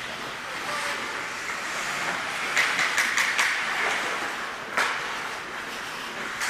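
Ice hockey play: skate blades scraping and carving the ice, with a cluster of sharp clacks of sticks and puck about two and a half to three and a half seconds in and a single sharp crack near five seconds.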